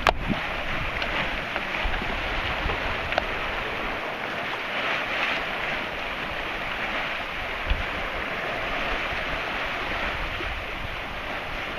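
Steady rush of water along the hull of a Tayana 55 sailboat heeled over under sail, with wind buffeting the microphone. A sharp click right at the start and a single knock about eight seconds in.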